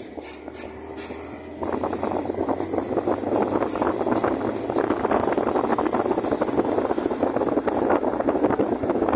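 Wind buffeting the microphone with road noise from a moving vehicle, jumping louder about a second and a half in. A thin high whine runs under it until near the end.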